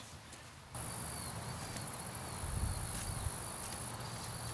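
Steady, high-pitched insect chorus that comes in abruptly under a second in, with a few faint ticks over it.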